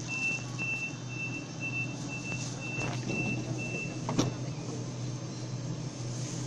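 Sydney Trains Waratah A-set electric train pulling out, with a steady hum. A high electronic beep repeats about twice a second for the first four seconds. A sharp squeak comes about four seconds in.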